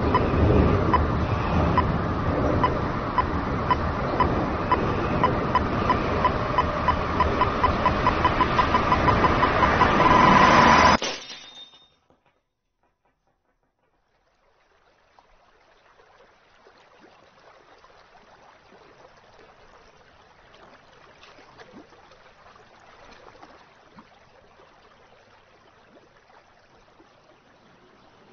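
A high electronic beep repeating faster and faster over a loud, dense rushing noise until the beeps merge into one continuous tone, then everything cuts off abruptly. After a few seconds of silence, a faint soft background noise fades in.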